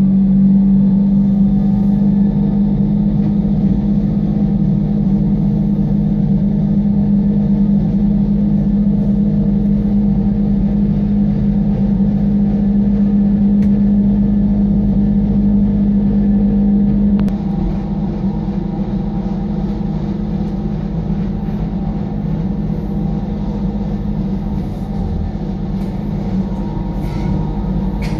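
Wengernalpbahn rack railway train running, heard from inside the carriage: a steady electric motor hum over the rumble of the running gear. About two thirds of the way through the hum drops away and the rumble carries on a little quieter.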